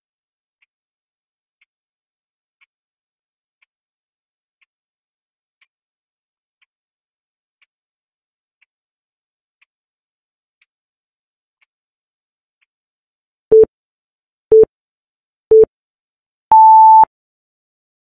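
Countdown timer sound effect: a faint tick once a second, then three short loud beeps a second apart and a final longer, higher beep as the count reaches zero.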